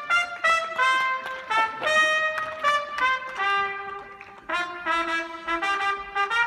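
Brass band playing a march tune led by trumpets, short phrases of changing notes with a brief break a little past the middle.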